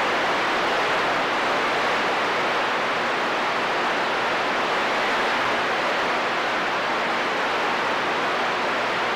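Steady hiss of static from a CB radio receiver, with no station coming through.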